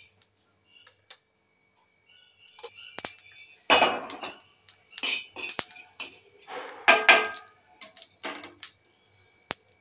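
Cast iron tawa knocking and scraping on the gas stove's grate as it is moved by its handle, with cumin seeds scattering across the hot pan. Sharp clicks and a handful of short scraping bursts, mostly in the second half.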